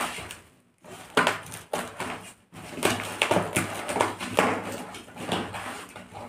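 Scissors cutting through a parcel's tape-and-plastic wrapping, the wrapping crinkling and tearing in irregular bursts with brief pauses.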